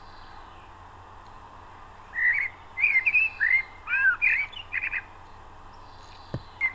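A bird chirping: a quick run of short notes that swoop up and down in pitch, about two to five seconds in, with one more chirp near the end.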